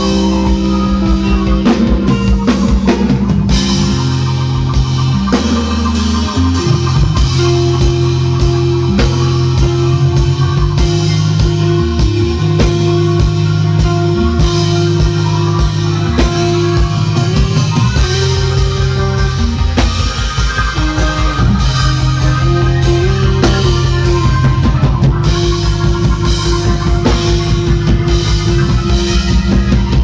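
A live band playing an instrumental piece: electric guitar, keyboards and a drum kit, with held low keyboard notes under the guitar and drums.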